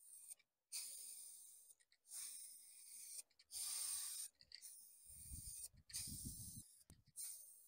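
Aerosol spray-paint can spraying in short bursts: a hiss repeated about six times with brief pauses between.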